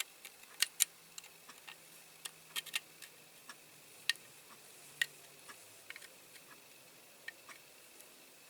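Small irregular clicks and taps of a small diecast metal model being handled and worked on by hand, about two dozen scattered ticks, the sharpest ones a little under a second in and around four and five seconds in.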